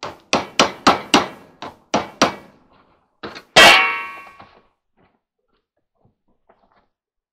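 Hammer blows driving a chisel to cut old glued door felt off a clothes dryer's front panel, about three or four quick taps a second for a couple of seconds. A little after three seconds come two light knocks, then one loud metallic clang that rings and dies away over about a second.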